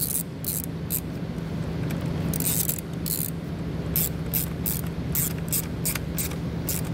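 Small hand ratchet with a 10 mm socket tightening a nut down onto a power stud: the pawl clicks in short, irregular strokes as the handle is swung back and forth.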